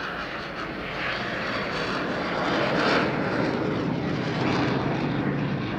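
Eurofighter Typhoon's twin EJ200 jet engines, heard as a loud, steady rush of jet noise during a slow pass with the landing gear down. The noise swells to its loudest about three seconds in.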